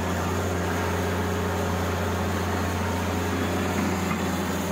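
Diesel engine of a John Deere wheeled excavator running steadily while the machine works, a constant low hum.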